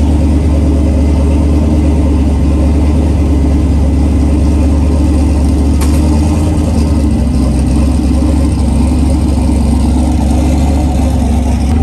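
A car engine idling loudly and steadily with a low, even rumble. There is a faint click about six seconds in.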